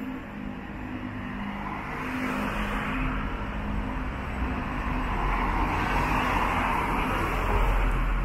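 Street traffic: a car drives past, its tyres hissing on the wet road and its engine rumble building to a peak near the end.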